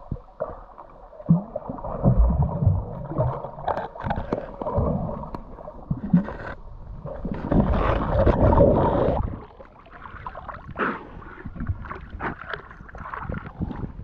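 Muffled underwater water noise heard through a submerged camera: bubbling and water moving, with scattered knocks and a louder rush of water about halfway through.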